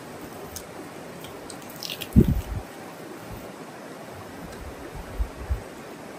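Steady rushing of a stream. A cluster of dull low thumps comes about two seconds in, and two softer ones follow near five seconds.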